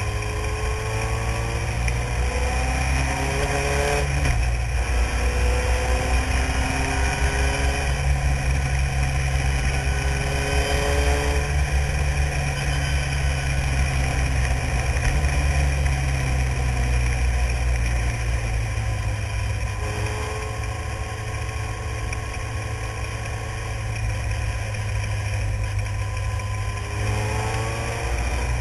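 Renault engine of a single-seater formula racing car, heard onboard, revving up hard and dropping in pitch at each upshift, several times over. Past the middle it runs lower and steadier for a few seconds before it climbs through the gears again, over a strong low rumble.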